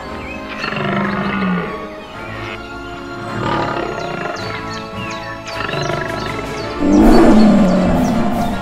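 Lion roar sound effects over background music, with a long, loud roar starting about seven seconds in.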